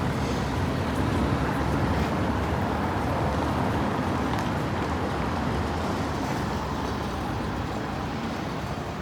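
City street traffic: the steady low rumble of passing motor vehicles, slowly fading as a vehicle draws away.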